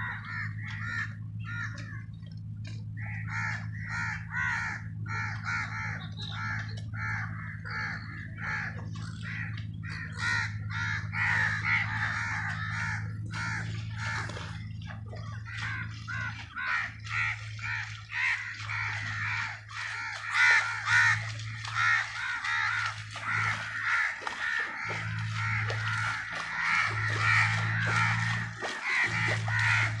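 Birds calling continuously in harsh, rapid, crow-like caws and chatter, over a steady low hum that breaks up into uneven pulses in the second half.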